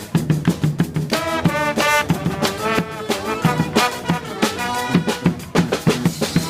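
Brass band music: horns playing a tune over a steady drum beat.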